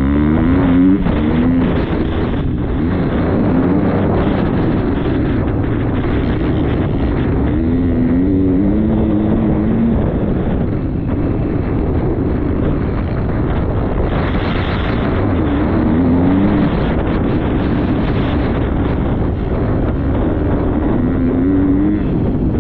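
Motocross bike engine being ridden hard, its pitch rising and falling over and over as the throttle is opened and shut, with wind buffeting the microphone.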